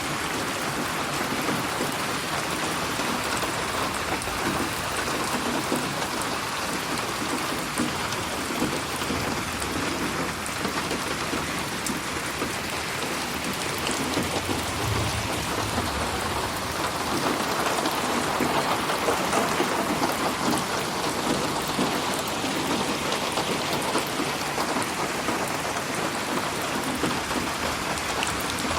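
Steady heavy rain pattering on a surface, with a dense haze of drops and fine individual ticks, panned around the listener as 8D audio. A brief low rumble comes about halfway through.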